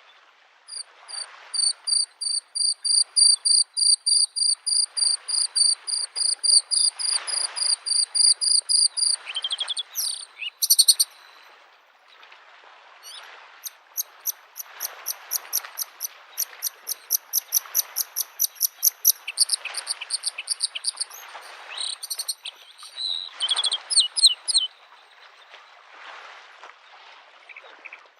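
Bluethroat singing long runs of rapid, high repeated notes, with a short varied flourish between them. Small lake waves wash against the shore underneath in soft, regular swells.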